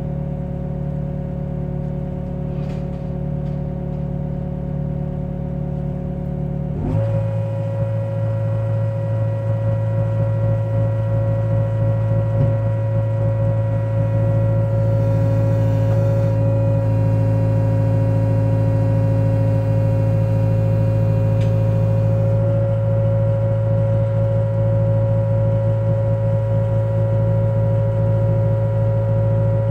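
Wheeled excavator's diesel engine running steadily; about seven seconds in it speeds up to a louder, higher-pitched steady run and holds there.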